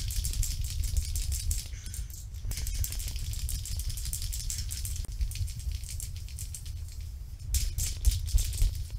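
Irregular rattling and clicking from a bicycle and its handlebar-mounted camera as the bike is moved across the floor, over a steady low rumble, with a louder spell of rattling near the end.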